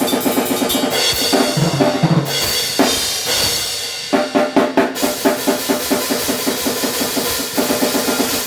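Acoustic drum kit played fast in grindcore style and picked up raw without drum microphones: rapid snare-and-cymbal blast beats, two low tom hits about a second and a half in and a cymbal wash, then a fast blast beat again from about four seconds in. The kick drums are electronically triggered, so the bass drum's own sound is barely heard.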